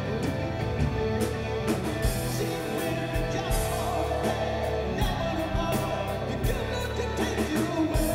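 A live rock band playing through a theatre PA, heard from the audience: electric guitars, bass and a steady drum beat with the lead singer's voice over them.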